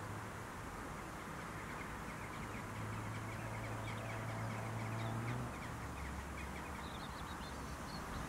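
Outdoor field ambience: wind noise with a steady distant engine hum that drops lower in pitch about halfway through, and many faint, quick bird chirps.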